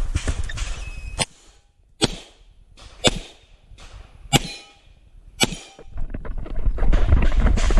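Five single pistol shots about a second apart, each sharp with a short echo, between stretches of rustling and footsteps.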